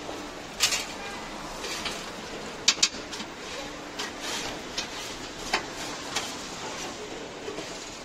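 Ambience of a street-food grill stall: a steady background noise with a few sharp clinks and knocks from utensils, two of them in quick succession about three seconds in.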